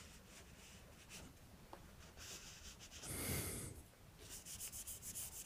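Cloth rubbing over a freshly lacquered floor plank, wiping off the excess lacquer: faint scratchy swishes, with a louder breathy rush about three seconds in and rapid short strokes near the end.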